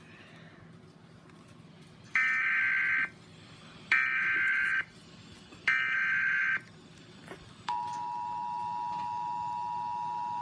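Emergency Alert System tones from a television: three one-second bursts of coded data tones with second-long gaps, the header that opens a new alert. Near the end the steady two-tone attention signal starts and holds.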